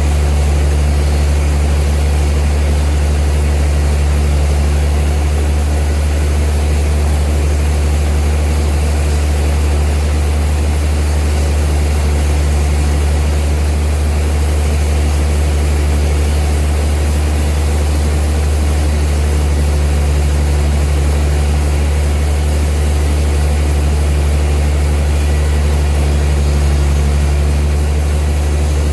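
Old sawmill machinery running with a loud, steady low drone that does not change.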